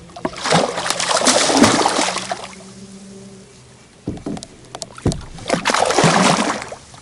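A blue catfish thrashing and splashing at the surface beside a kayak as it is landed, in two bouts of splashing, with a couple of knocks in between.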